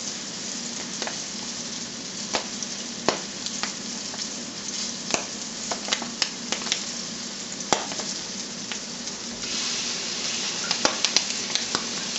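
Flour-dredged rabbit livers frying in a skillet: a steady sizzle with scattered sharp pops, which grows louder about three-quarters of the way through.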